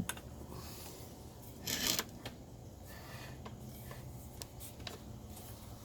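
Faint handling noises: scattered small clicks and one brief rustle about two seconds in, over a low steady hum.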